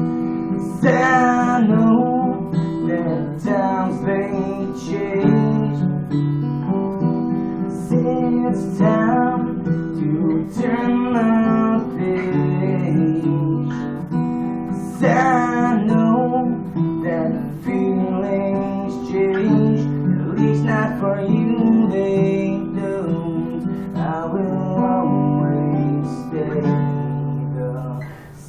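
Acoustic guitar strummed in steady chords, with a man singing along over it.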